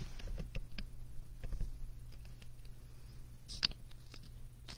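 Faint scattered clicks and taps of handling, with one sharper click about three and a half seconds in, over a steady low hum.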